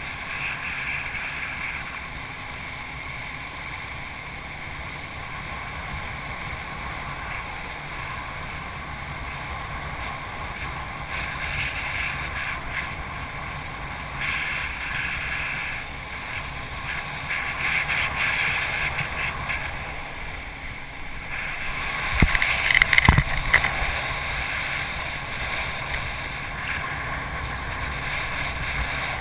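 Wind buffeting a rider-mounted camera and water rushing under a wakeboard being towed behind a boat, a steady rush. About three-quarters of the way through it gets louder and choppier, with a couple of sharp knocks.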